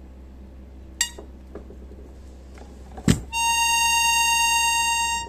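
Accordion reed being tuned by ear: a short metal ping about a second in and a knock just after three seconds, then a single reed note sounding high and steady, with many overtones, for the last two seconds.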